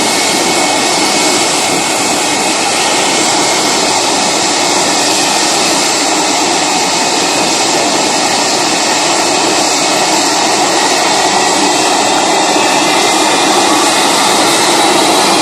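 Jet aircraft engine running at high thrust: a loud, steady rush of exhaust noise with a high whine over it, the whine rising a little in pitch near the end.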